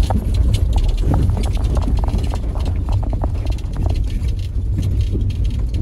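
Car driving over a rough, unpaved road, heard from inside the cabin: a steady low rumble with many irregular clicks and knocks as the car jolts and rattles over the broken surface.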